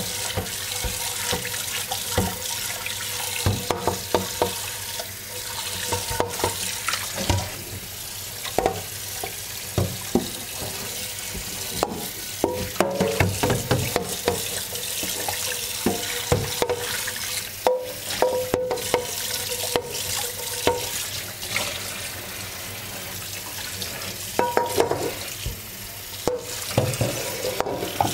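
Tap water running into a kitchen sink while a frying pan is washed by hand, with knocks and clatter of the pan at intervals.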